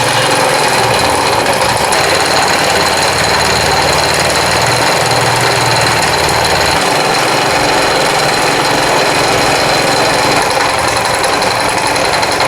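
Italika WS-150 scooter's single-cylinder engine running with a very loud, hard knocking rattle, which the mechanic and owner take for a failing crankshaft or crankshaft bearing. The deepest part of the sound drops away about seven seconds in.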